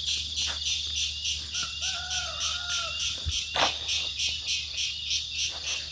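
A rooster crows once, a single long drawn-out call lasting about a second and a half, heard over a steady pulsing chorus of crickets. A sharp click comes just after the crow.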